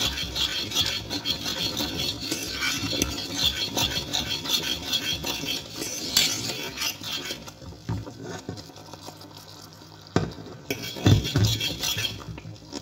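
A metal utensil stirring béchamel sauce in a stainless steel saucepan, rapidly scraping and clinking against the pan. The stirring eases off about halfway, with a few sharper knocks on the pan near the end.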